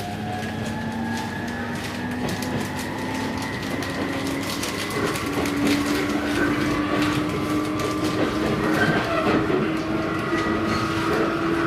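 JR East 719 series electric train heard from inside, its traction motor whine rising slowly and steadily in pitch as it gathers speed, over running noise and wheels clicking across rail joints. This unit's motors make an unusual, odd-sounding whine compared with other 719s.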